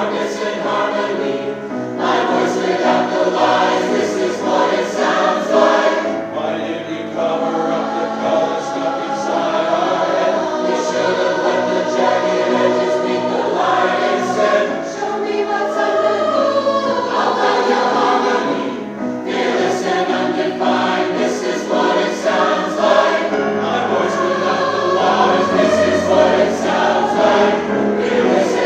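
Community chorus singing a choral arrangement of a pop song with instrumental accompaniment, many voices holding sustained chords.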